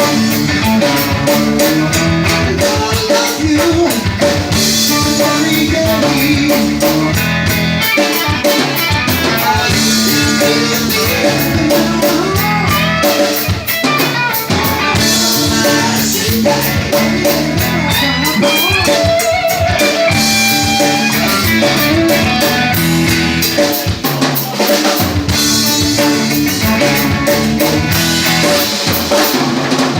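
Live band playing an instrumental passage on drum kit and electric guitar, with no singing.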